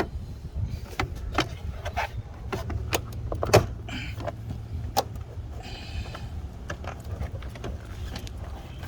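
Plastic door trim panel being pushed and knocked into place on the car door: a run of irregular clicks and knocks, the sharpest about three and a half seconds in, over a low steady hum.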